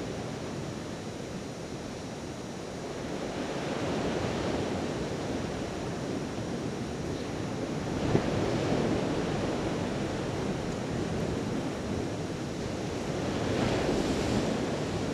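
Sea surf breaking on a sandy beach, a steady wash that swells and eases about three times, with wind on the microphone. A brief knock comes about halfway through.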